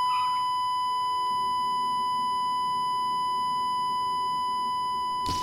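A long, steady censor bleep: a single pure beep tone held without a break, covering crude words.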